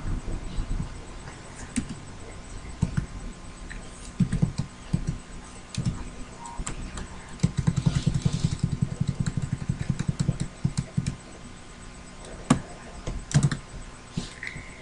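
Computer keyboard typing: scattered single keystrokes with a quick run of key clicks about eight seconds in, as variable names in code are edited.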